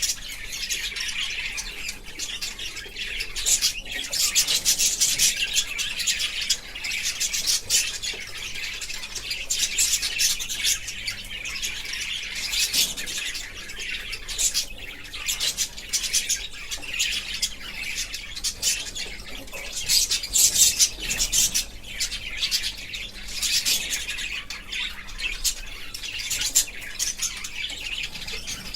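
Budgerigars chirping and chattering in a dense, unbroken twitter, with louder flurries every few seconds.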